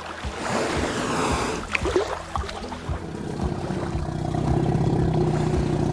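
Water splashing and sloshing, then about three seconds in a steady low hum with several overtones sets in and holds.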